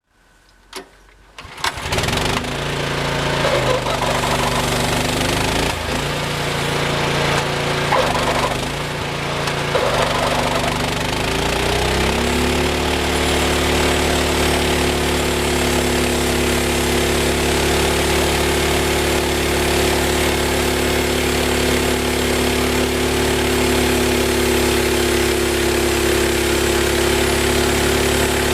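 The engine of a homemade band sawmill comes in about a second in, changes speed several times, then settles after about twelve seconds into a steady run.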